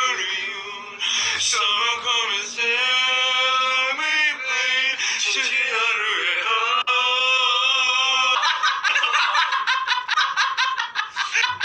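A young man singing in long, drawn-out held notes, with short breaks between phrases. About eight seconds in the singing gives way to loud, hearty laughter, in rapid pulses.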